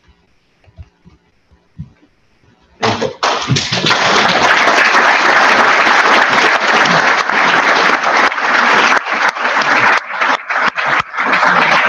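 Audience applauding, starting suddenly about three seconds in after a short near-quiet pause, then holding steady and beginning to thin near the end.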